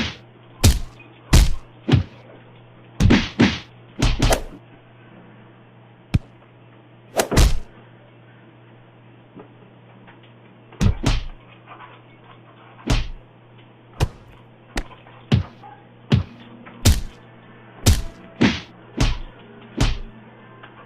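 A cat and dog tussling, heard as a string of irregular sharp thumps and knocks, about two dozen in all, with a quiet spell of a few seconds near the middle.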